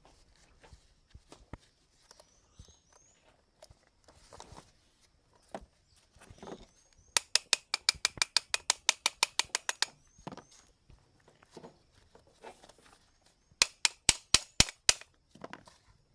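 Hand tool working on a starter motor: two runs of rapid, sharp, evenly spaced clicks, about eight a second, one lasting nearly three seconds midway and a shorter one near the end, with a few scattered knocks between.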